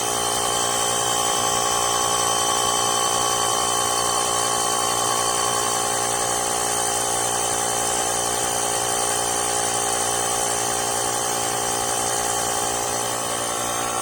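Portable air compressor built into a VTOMAN X7 jump starter running steadily at an even pitch while pumping up a car tyre.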